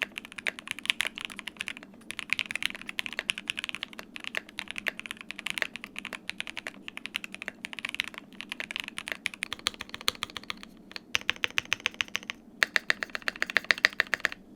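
Typing on a Qwertykeys QK60 60% gasket-mounted custom mechanical keyboard built with plate foam, case foam and PE foam: a fast, continuous run of keystroke clacks with a few short pauses.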